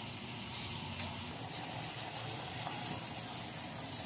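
Steady hiss of pork slices sizzling in a grill pan on a portable gas stove, with a low steady hum underneath.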